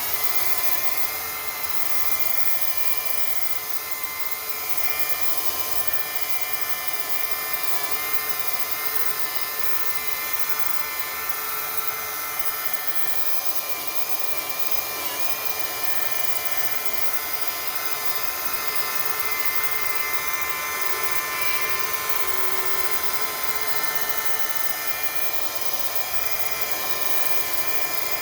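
Hercules rotary polisher with a 180-grit sanding disc, spinning up at the start and then running steadily as it sands body filler: a high electric-motor whine that dips slightly in pitch now and then as it bears into the work.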